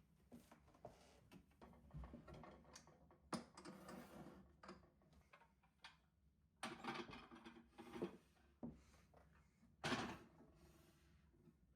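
Faint household handling sounds: scattered light knocks and clicks of objects being moved, with three short swishing noises about a second long, the loudest near the end.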